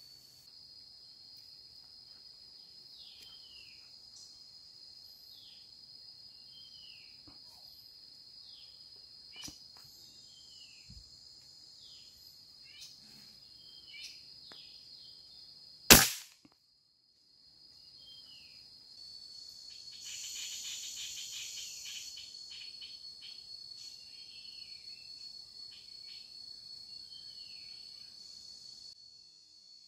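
A single sharp crack of a scoped air rifle firing about halfway through. Behind it an insect keeps up a steady high whine and a bird gives repeated short falling chirps, about one a second.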